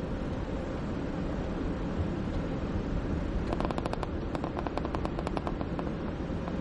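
Steady road and engine noise inside the cabin of a moving car, with a quick run of sharp clicks or rattles lasting about two seconds, a little past the middle.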